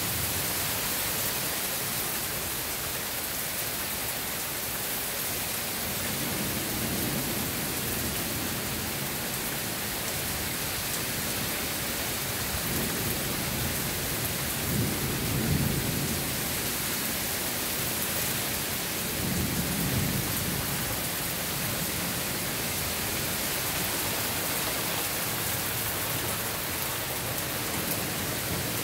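Steady rain hissing, with thunder rumbling low several times, the loudest rumble about halfway through.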